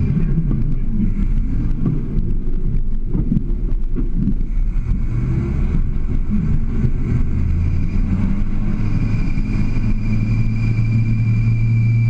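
Toyota Land Cruiser FJ40 engine working under load while rock crawling, with a few knocks early on as the tyres climb the rock. In the second half the revs rise and are held, with a thin steady whine over the engine in the last few seconds.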